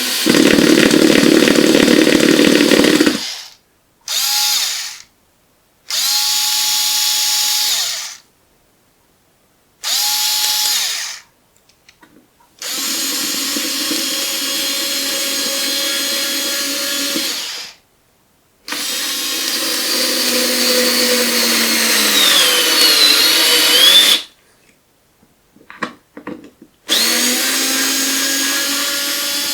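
Cordless drill's motor whining in repeated trigger bursts: about seven runs of one to five seconds each, each spinning up quickly and stopping sharply, with short pauses between them. In one of the longer runs the pitch sags and then recovers. A few light clicks fall in one of the gaps.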